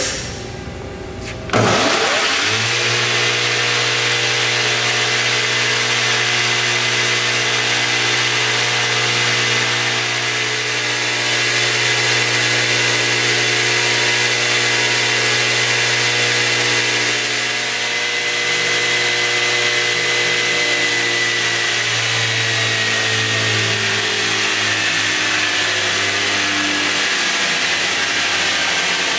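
Fein Grit GI150 belt grinder starting up about a second and a half in, then running steadily with its electric motor hum, the abrasive belt's rush and a high steady tone. The pitch sags slightly after about twenty seconds.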